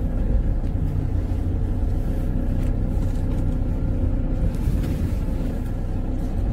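Steady low rumble inside a car cabin as the car drives slowly over a rough, unpaved dirt road: engine and tyre noise, with the car bouncing over a broken road surface.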